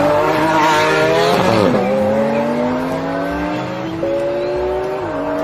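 Race car engine accelerating through the gears. The pitch climbs steadily, drops at a shift about two seconds in, climbs again and drops once more near the end.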